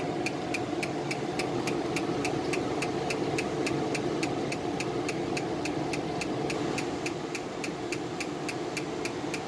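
Palomar Icon 2940 fractional (Er:YAG) laser handpiece firing during calibration, a regular train of sharp clicking pulses at about three a second over the machine's steady hum.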